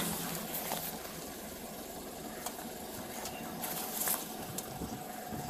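Car engine idling, a low steady running sound with a faint hum, and a few light clicks over it.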